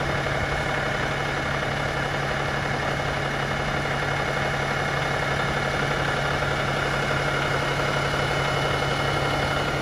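Idling diesel engine of the FDNY Satellite 3 apparatus: a steady, even run with a constant low hum.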